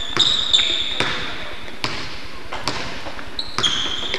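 Basketball bouncing on a hardwood gym floor, a sharp thud about once a second, with high rubber sneaker squeaks on the court near the start and again near the end.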